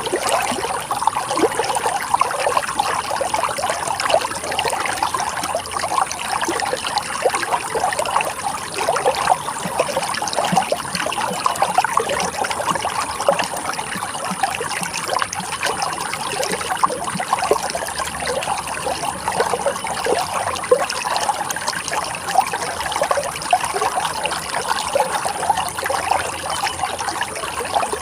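Running water, a shallow stream trickling and babbling steadily over stones.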